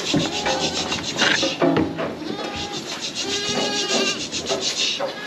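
A crowded pen of young goats bleating, many calls overlapping one another.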